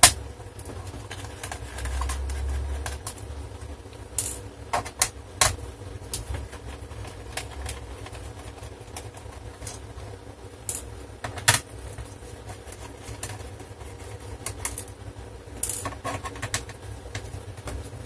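Scattered clicks and light taps from a screwdriver undoing the small screws in the plastic case of a Toshiba Satellite C850 laptop, with a dull knock about two seconds in.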